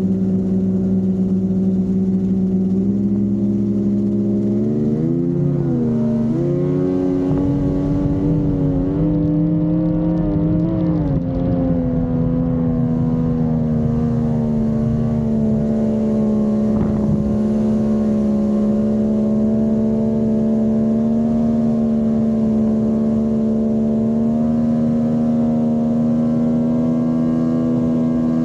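Mercury 50 hp outboard motor running hard at speed. Its pitch steps up and wavers up and down for several seconds, then holds steady at a high note.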